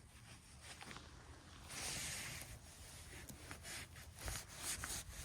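Faint rustling and small crackles of moss and twigs on a forest floor, with a louder rustle about two seconds in.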